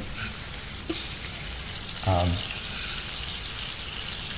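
Food frying in a pan: a steady sizzle. A brief voice sound cuts in about two seconds in.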